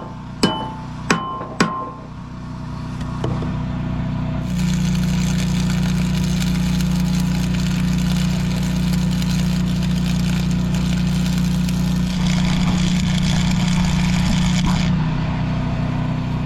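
A drum beat ends about two seconds in. Then comes about ten seconds of arc welding, a steady crackling hiss, over a constant low hum.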